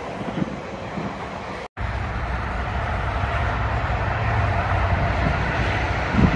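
Highway traffic: a tractor-trailer's engine and tyres making a steady low rumble with road hiss, growing slowly louder. The sound cuts out completely for a moment about two seconds in.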